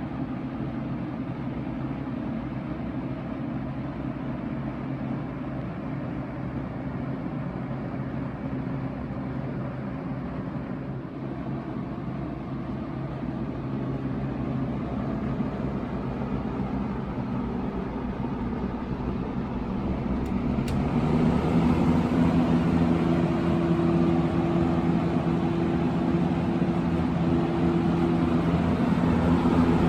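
1979 Kmart K-223 20-inch box fan made by Lakewood, its shaded-pole motor and rounded D-blades running with a rush of air and a steady hum. About two-thirds through there is a click, and the fan then runs louder with a higher hum, switched up a speed.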